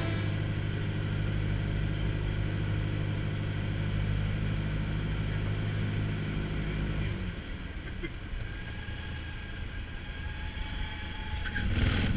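Cessna 172's piston engine and propeller heard from inside the cabin as a steady drone. About seven seconds in, the steady hum drops away and the sound turns quieter and rougher, with a brief louder rush near the end.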